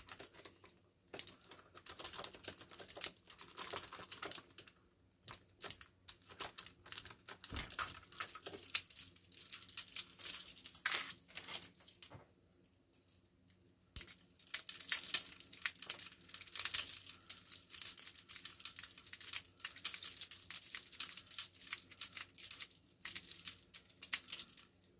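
Lock-pick rake scrubbed back and forth in a padlock's keyway against a tension wrench: rapid metallic clicking and scraping of the pins in spurts, with a couple of short pauses. The lock does not open.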